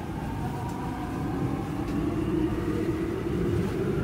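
Subway train moving along a station platform: steady rumble of the car with a faint electric motor whine.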